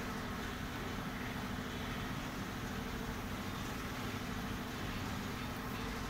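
Steady low background rumble, even in level throughout.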